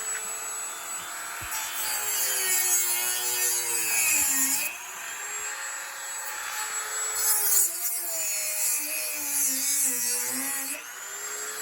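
Dremel rotary tool cutting into a pine Pinewood Derby block: a motor whine over a gritty grinding noise. The whine sags in pitch as the bit bogs down in the wood, briefly about four seconds in and for a longer stretch later, then picks back up near the end.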